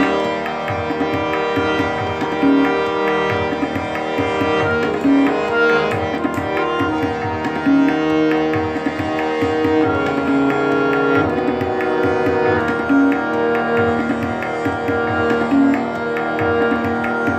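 Instrumental music in an Indian style: long held pitched notes over a steady drum rhythm, playing without a break.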